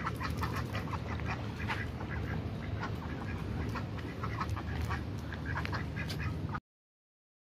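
White domestic ducks quacking, a rapid run of short calls over a steady low background, cut off abruptly near the end.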